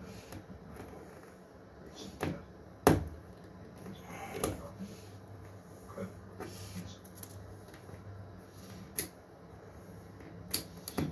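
Scattered clicks and knocks of tools and wiring being handled at a workbench, the loudest a sharp knock about three seconds in.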